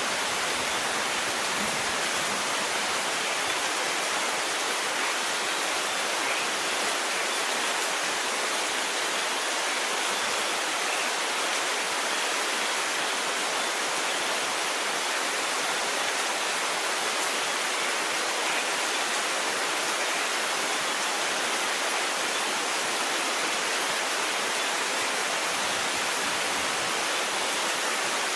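Steady rain falling, an even hiss at a constant level, with no thunder in this stretch.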